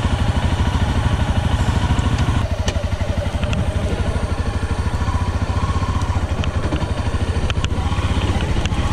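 Off-road trail motorbike engine running at low revs with a fast, steady pulse as the bike coasts down a rocky dirt slope. A few sharp clicks and knocks come from about two and a half seconds in and again near the end.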